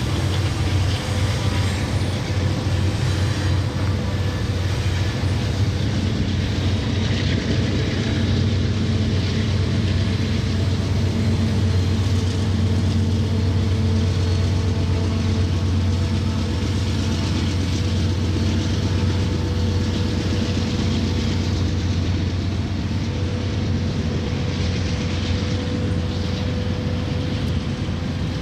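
Union Pacific diesel-electric freight locomotive working under heavy load as it pulls a loaded hopper train away: a steady, deep engine rumble with a faint steady hum above it.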